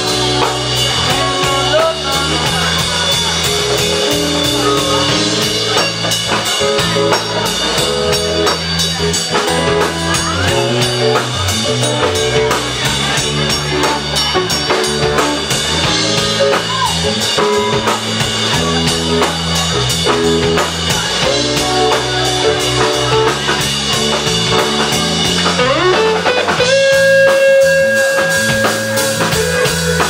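Live band playing an instrumental passage with no singing: guitar over bass and drum kit. Near the end a note slides up and is held.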